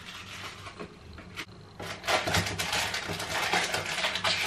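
Cardboard advent-calendar box and its contents being handled: a single sharp click about a second and a half in, then a busy stretch of rustling and scraping from about two seconds on as the drawer is opened and the packaging inside is pulled out.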